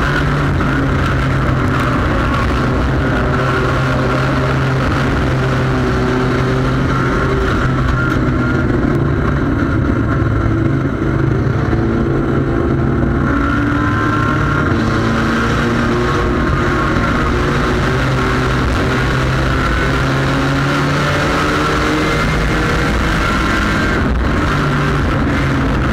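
Engine of a front-wheel-drive sport compact race car running hard at racing speed, heard on board, its pitch rising and falling slightly with the throttle. Steady wind and road noise under it.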